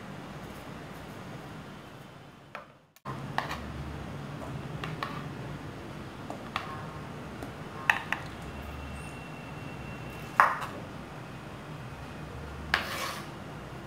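A knife knocking on a wooden cutting board and clinking against a stainless steel mixing bowl as fruit is cut and put into it: a handful of separate sharp knocks and clinks. The loudest is a ringing clink about ten seconds in.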